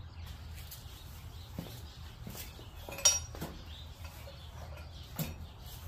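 A few light metal clinks and knocks of tools and metal parts being handled, with one sharper, briefly ringing clink about three seconds in.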